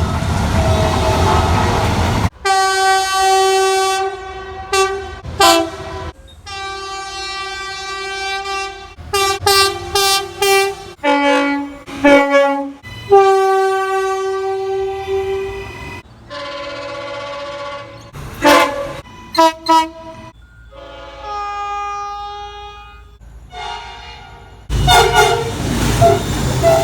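Locomotive air horns sounding a string of long and short blasts, several different horns in turn. A train's running rumble comes before the first blast and again near the end.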